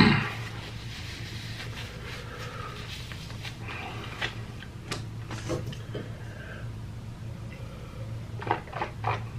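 A person blowing their nose into a tissue, a short loud rush of air right at the start that dies away quickly. Small scattered mouth clicks follow, and near the end three quick gulps as water is swallowed from a glass.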